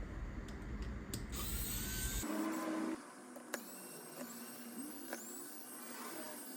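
Cordless electric screwdriver whirring briefly, about two seconds in, while unscrewing laptop hinge screws, with a few small clicks afterwards.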